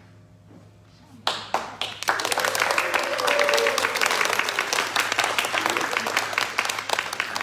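Audience applauding: a few claps about a second in, quickly swelling into full applause.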